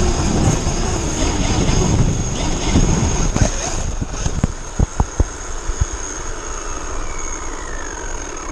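Traxxas Unlimited Desert Racer RC truck driving hard over grass, its motor whining with a thin high steady tone and rough rumble, then a few sharp knocks about five seconds in as it crashes and tumbles. Afterwards a falling whine as the motor and wheels spin down with the truck on its side.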